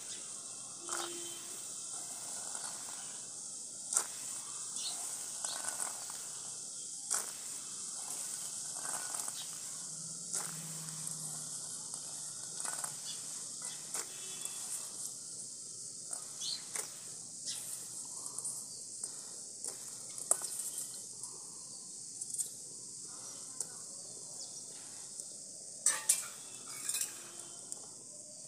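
Green peas poured into an iron wok of simmering masala water and stirred in, first by hand, then with a steel ladle: scattered clicks and knocks over a steady high hiss, the sharpest knocks coming near the end.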